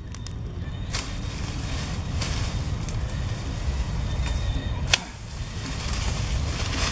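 Leafy branches rustling and crackling as someone pushes through dense bushes. There is a sharp snap about five seconds in, likely a branch breaking, over a steady low rumble.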